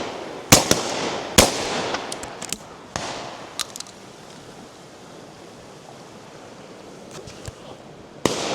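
Shotguns firing at driven pheasants: two loud shots about a second apart near the start, then a scattering of fainter shots over a steady background hiss.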